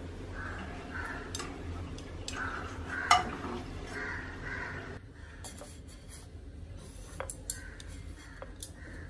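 Kitchen cooking sounds: a sharp knock of a utensil against a nonstick frying pan about three seconds in, then a few light clicks of chopsticks against a plate.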